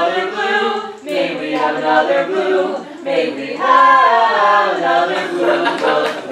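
A small group of voices singing together unaccompanied, in held phrases with short breaks for breath about a second and three and a half seconds in.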